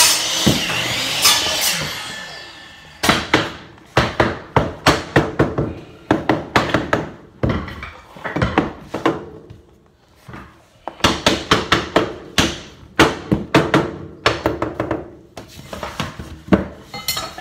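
Hammering on hardwood floorboards during installation: runs of quick, sharp knocks with short pauses between them.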